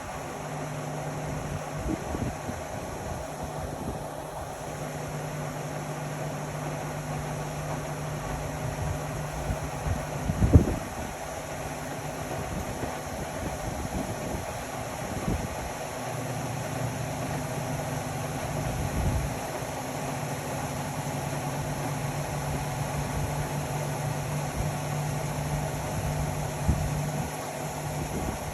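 Indesit Innex XWA 81252 washing machine running: a steady motor hum that stops for several seconds partway through and then resumes. A loud thump comes about ten seconds in, with a few fainter knocks.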